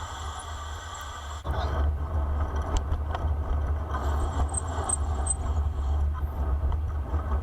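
Wind rumbling on the microphone with road noise from a bicycle rolling downhill, growing suddenly louder about a second and a half in.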